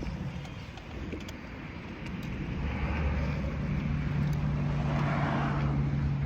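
Custom retrofit electric motorcycle under way: a steady low hum with wind and road noise, growing louder about two to three seconds in.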